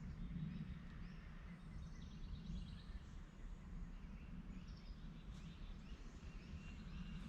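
Outdoor ambience: a low, steady rumble with faint, scattered bird chirps.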